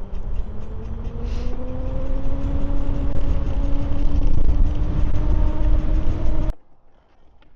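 Electric e-bike motor whining and rising slowly in pitch as the bike gathers speed, over a heavy low rumble of wind and riding noise. The sound cuts off abruptly about six and a half seconds in, leaving a quiet stretch with a couple of clicks.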